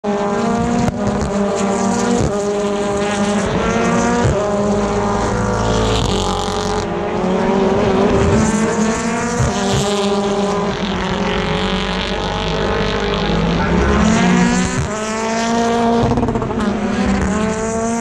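British Touring Car Championship race cars, 2.0-litre turbocharged four-cylinders, accelerating hard past one after another out of a slow corner. Each engine note climbs in pitch and drops back at every upshift, over and over.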